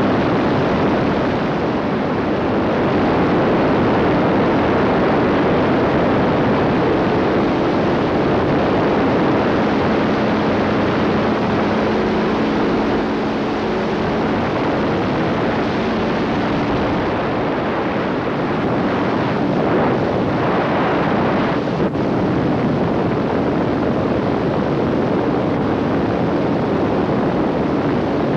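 Rotax 582 two-stroke engine and pusher propeller of an ultralight trike running steadily in flight, mixed with heavy wind noise rushing over the microphone. There is a brief click about three-quarters of the way through.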